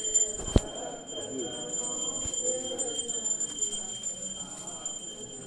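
Temple bells ringing continuously, a high steady ringing that fades out near the end, over a murmur of voices. A sharp knock about half a second in.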